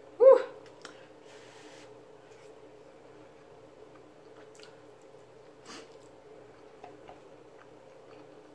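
Quiet eating sounds at a table: faint clicks of a fork against a plate and a brief soft squish as neck-bone meat is picked apart by hand, over a steady low hum. A short high vocal sound about a quarter second in is the loudest thing.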